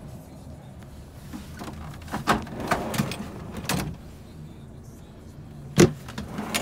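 A truck cab's pull-out fridge drawer is handled with plastic rattles and scrapes, then pushed shut with a sharp knock near the end. A steady low hum runs underneath.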